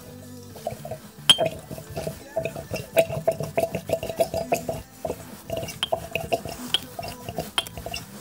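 Metal fork tube clinking rapidly against the rim of a glass jar, several clinks a second and densest in the middle, while old fork oil from a Yamaha DT50MX trickles and drips into the jar.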